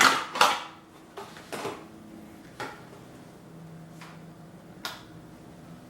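Hands handling packaging and lamp parts: a burst of rustling at the start, then several separate sharp clicks and knocks.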